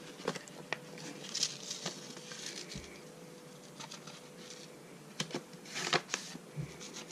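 A small paper seed packet being handled and torn open: faint crinkling and rustling with scattered light ticks, in two louder bursts, at about one and a half seconds and about six seconds in.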